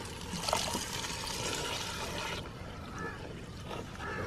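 Water pouring and sloshing into a pot of curry masala as it is stirred in with a wooden spatula; the pouring and splashing stop abruptly about two and a half seconds in.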